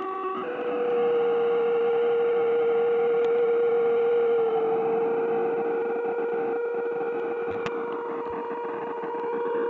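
Electronic noise machine droning with feedback-like held tones over a hiss. About half a second in, the pitch shifts to one steady mid-low tone that holds.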